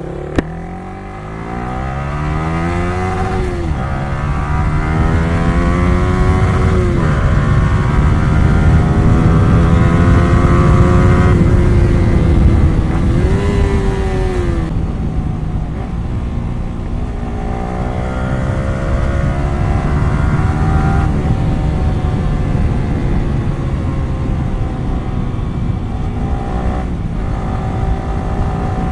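Yamaha R15 V3's single-cylinder engine through a loud aftermarket exhaust with one of its two dB killers refitted, pulling away and accelerating through the gears: the engine note climbs and drops back at each gear change, eases off about halfway, then climbs again. A short click about half a second in.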